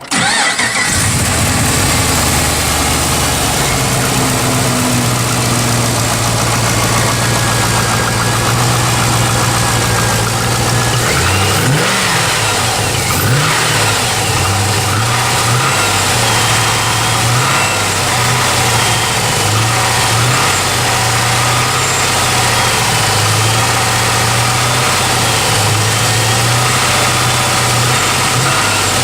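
Pontiac G8's engine idling, then revved about twelve seconds in and blipped up and down repeatedly after that. The engine has a knock.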